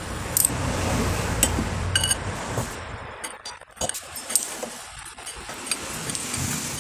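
Hand tool clinking on the bolts of a motorcycle rear-wheel sprocket as the four sprocket bolts are tightened: a handful of scattered sharp metallic clinks with a short ring.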